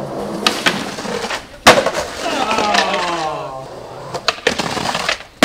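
Skateboard on concrete: wheels rolling and sharp clacks of the board, with one loud board slap about a third of the way in and another sharp impact right at the end. In the middle a person's voice is drawn out, falling in pitch.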